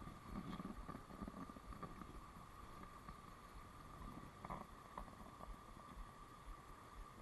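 Faint, steady rush of stream water spilling over a low concrete weir, with a few soft handling knocks near the start and again about four and a half seconds in.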